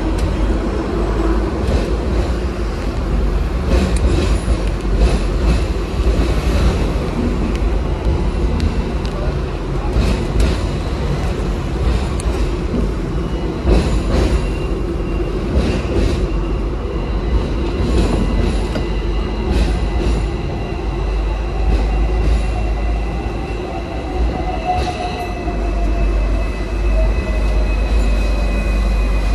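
Electric tram running along street tracks: a steady low rumble of wheels on rail, with sharp irregular clacks. In the second half a faint electric motor whine slowly falls in pitch, as a VVVF tram's traction motors do when it slows.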